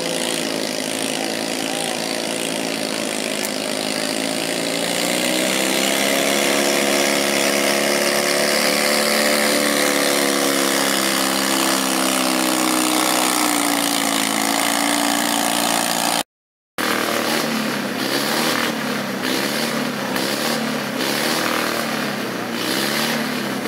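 Case garden tractor engine revving up about five seconds in and holding high as it works against the pulling sled. After a short break a second garden tractor's engine runs with its pitch wavering up and down about once a second.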